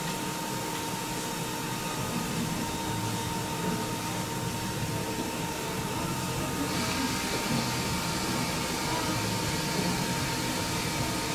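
A small electric motor running steadily, with a thin whine over a hiss. The hiss gets brighter about two-thirds of the way through.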